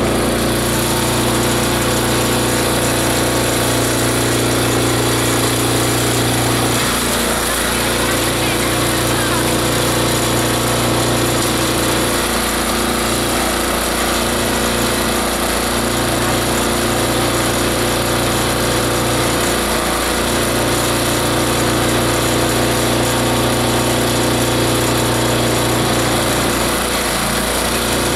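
Multi-blade chopper/shredder/grinder machine running, grinding organic material with a loud, steady mechanical drone. Its low hum drops out briefly a few times.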